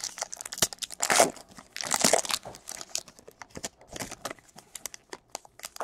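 Trading cards being handled and flipped through: a run of light clicks and papery rustles as card stock slides over card stock, with louder swishes about one, two and four seconds in.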